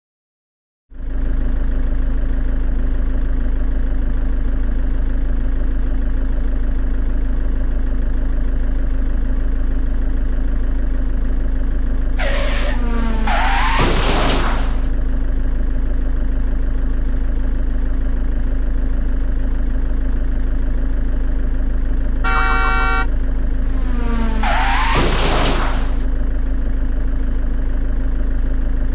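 Steady vehicle engine drone with a strong low hum, starting suddenly about a second in. Twice, about 11 seconds apart, a falling-pitch pass-by sweep sounds over it, and a short car-horn honk comes about 22 seconds in.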